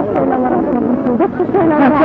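A crowd's voices shouting and chanting together, several voices overlapping.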